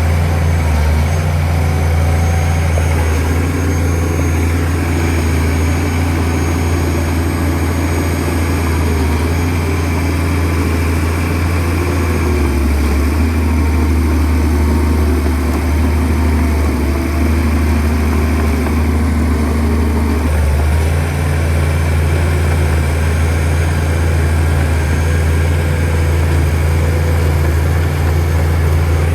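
Shantui DH17C2 bulldozer's diesel engine running steadily with a deep low hum, its note shifting about twelve seconds in and again about twenty seconds in as the load changes while it pushes dirt.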